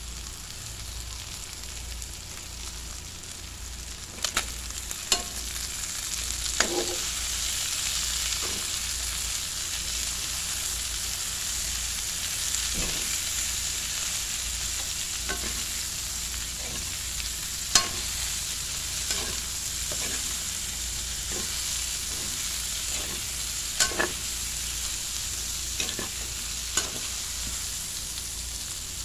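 Cabbage, tomato, onion and sliced hotdog sizzling steadily in a hot wok as they are stir-fried, with a dozen or so sharp knocks and scrapes of the spatula against the pan.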